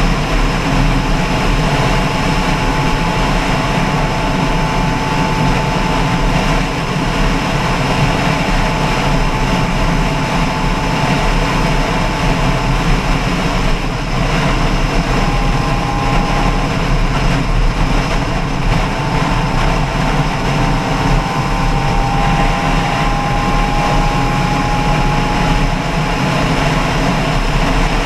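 A loud, steady engine drone with rushing noise, as heard while riding in a motor vehicle or boat. A faint thin whine sits above it, drifting slightly in pitch, and breaks off briefly about halfway through.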